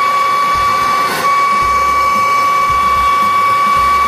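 Handheld gas torch burning steadily, a constant hiss with a high whistling tone, as its flame heats a seized suspension nut to loosen it.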